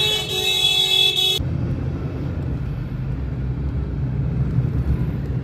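A vehicle horn blares with a steady multi-tone sound and cuts off about a second and a half in. It is followed by the steady low rumble of a car driving, heard from inside the moving car.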